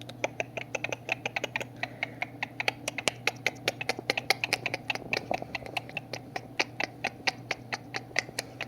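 Cockatiel picking at and crunching dry timothy hay and its seed heads with its beak: rapid, irregular sharp clicks and crackles, several a second. A faint steady hum lies underneath.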